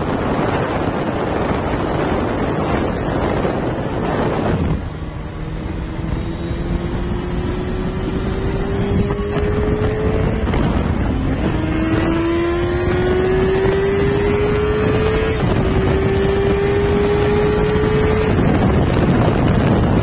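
Wind rushing over the microphone at riding speed, giving way to a Honda CBR sport bike's engine note rising steadily in pitch as it accelerates, dropping back twice at gear changes. Near the end the wind noise swamps it again.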